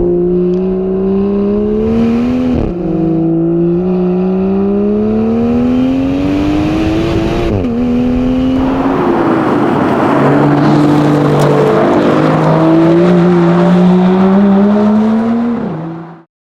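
Aston Martin DB11 accelerating hard through the gears: the engine note climbs steadily and drops sharply at each upshift, four times, then cuts off suddenly near the end.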